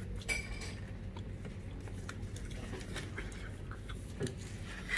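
Quiet table noises: small clicks and clinks of dishes and tableware, with one sharper click about a third of a second in.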